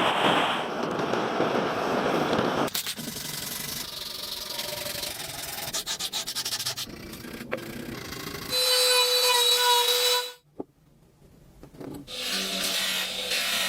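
Abrasive rubbing and scrubbing on rusty metal, in several short segments broken by cuts. A brief whining tone comes about nine seconds in, followed by a moment of near silence.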